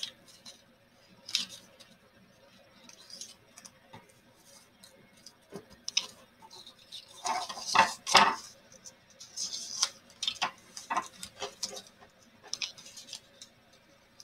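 Paper strips being folded and woven by hand on a wooden desk: scattered soft rustles, crinkles and light taps, busiest and loudest a little past the middle.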